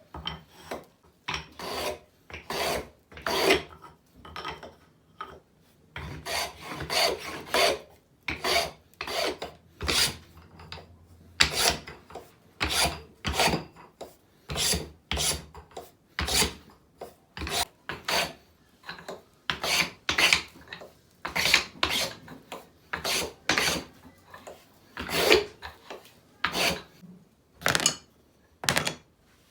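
A hand tool worked back and forth on wood in repeated scraping strokes, about one or two a second, with short pauses between runs.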